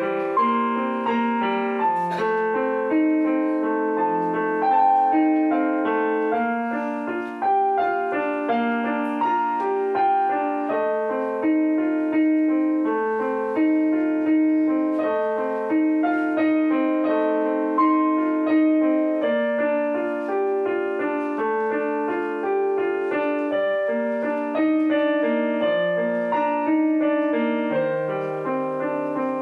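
Background instrumental music: a melody of single ringing notes over a lower accompaniment, each note striking and fading.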